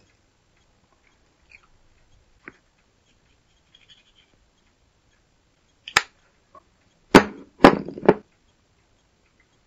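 Handling knocks on a cutting mat as tweezers and an 18650 battery pack are moved about: a single sharp click about six seconds in, then three louder knocks with short scrapes in quick succession near the end.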